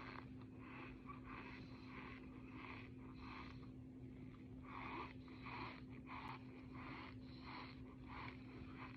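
A person breathing heavily through the mouth, in quick, even, rasping breaths about two a second, over a faint steady hum.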